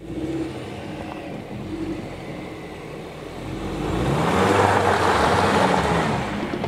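Car driving past on a snow-covered road. Its engine and tyre noise swell as it comes close, loudest about four to six seconds in, then ease off.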